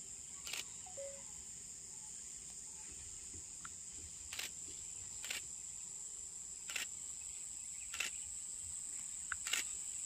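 Insects keeping up a steady high-pitched drone, with about six short, sharp clicks scattered through it.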